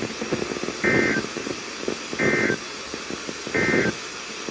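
Three short bursts of Emergency Alert System digital data tones, the End of Message code that closes an alert, about a second and a half apart. They come over a weather radio broadcast with steady static hiss underneath.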